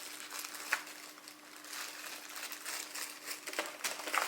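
Handling noise of a keyboard and its loose keycaps: soft crinkling with scattered small clicks, denser near the end, over a faint steady hum.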